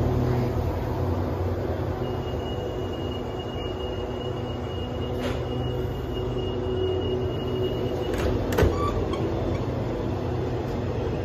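Stainless-steel passenger coaches rolling past close by, a steady rumble of wheels on the rails. A thin, steady high squeal runs from about two seconds in to about eight seconds in, and a few sharp knocks come near the middle and about eight seconds in.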